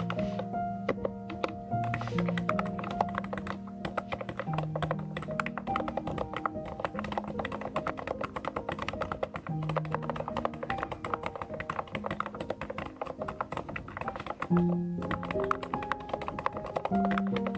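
Fast continuous typing on a DURGOD K615W mechanical keyboard, a dense patter of key clacks, over background music with sustained low notes.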